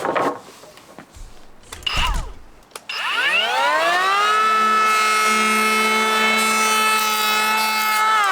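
Electric power tool motor switched on about three seconds in, winding up to a steady whine and running at full speed, starting to wind down at the end; a few knocks before it starts.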